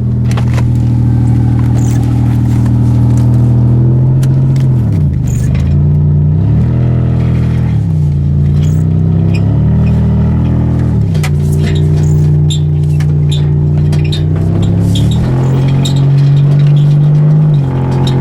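A 1989 Toyota Camry's 2.5-litre V6 engine running as the car is driven. The engine note drops and climbs again several times, about five, eight, eleven and fifteen seconds in, and runs highest just before a final drop near the end.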